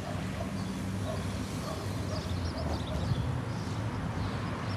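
Outdoor ambience of a steady low hum of road traffic, with a few faint bird chirps about two to three seconds in.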